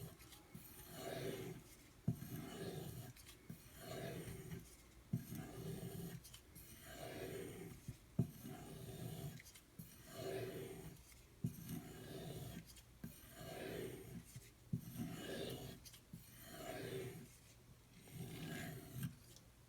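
A knife blade drawn in repeated stropping strokes along a strop charged with 2-micron CBN emulsion, a soft rasping rub about once a second, with a light tick every few strokes.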